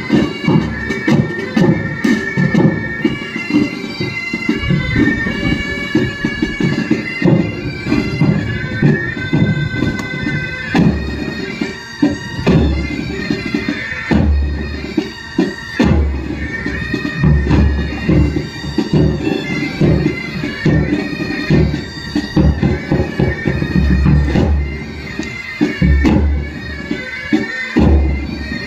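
Military pipe band playing: bagpipes sound a melody over their steady drones, while side and tenor drums and a bass drum keep the beat.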